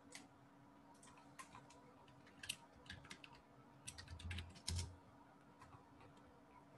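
Faint typing on a computer keyboard: scattered key clicks, then two quicker runs of taps in the second half.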